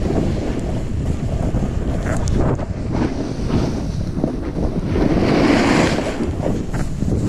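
Wind rushing over the microphone of a camera carried by a snowboarder riding through powder snow, with the hiss of the board sliding through the snow. The rush swells brighter about five seconds in.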